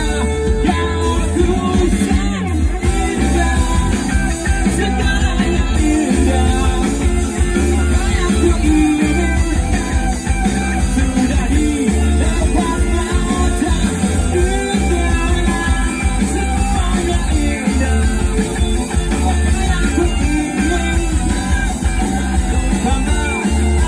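Live rock band playing a song through a stage sound system: heavy bass, guitars and a singer's voice, loud and continuous.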